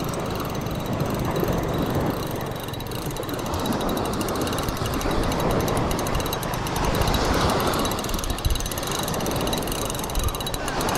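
Shimano Stella spinning reel being cranked, its gears whirring with a fine rapid ticking, over the wash of small surf breaking on the beach.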